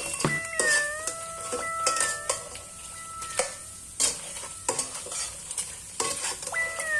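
Crabs being stirred and turned in a pan over a light sizzle, with frequent sharp clicks of the utensil knocking against the pan and shells.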